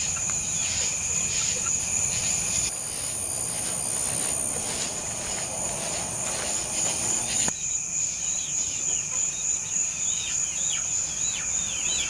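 Night chorus of crickets and other insects: a steady high-pitched trill throughout, with a second, lower shrill tone that drops out for a few seconds in the middle. Short chirping calls sound over it in the second half.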